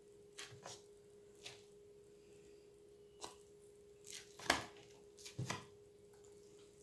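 Close-miked eating: a fork picking through a salad and crunchy chewing, heard as a handful of short crunches and clicks, the loudest about four and a half seconds in. A faint steady hum sits underneath.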